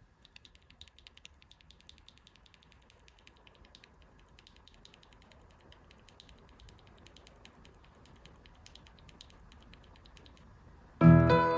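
Fast typing on a 67-key mechanical keyboard with purple 苦茶 switches: quiet, rapid, irregular keystroke clicks. Loud plucked-string music comes in near the end.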